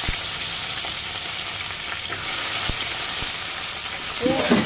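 Shallots and green chillies sizzling in hot oil in a clay pot: a steady frying hiss with a few light knocks.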